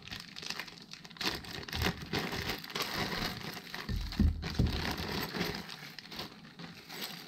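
Clear plastic bags crinkling and rustling as parts are unwrapped by hand, with a soft knock about four seconds in.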